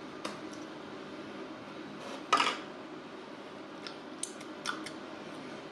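Small plastic takeout sauce cups and utensils being handled: light clicks and taps, with one louder, brief crackle a little over two seconds in.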